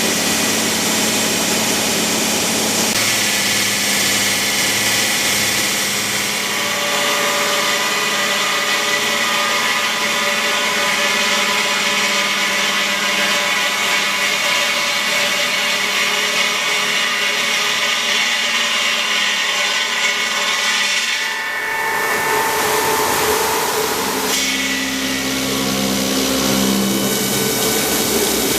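Omag Blade5 CNC stone-cutting machine running steadily under load, its tool working the stone. The note changes a few seconds in, and changes again twice near the end.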